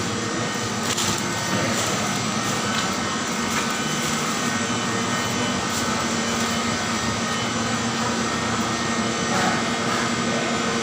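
Steady drone and whoosh of blast-freezer refrigeration machinery (fans and compressor), running without change and carrying several held tones.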